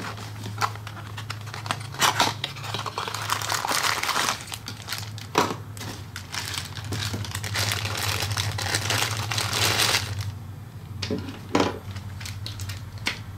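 Clear plastic bag crinkling and rustling as it is handled and opened to take out a wall charger and its cord, with a few sharp crackles. The crinkling is busiest in the middle and dies down about ten seconds in.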